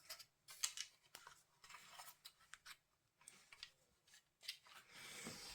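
Faint, scattered clicks and light rubbing from a plastic Stridor toy horse being handled and posed by its jointed limbs; otherwise near silence.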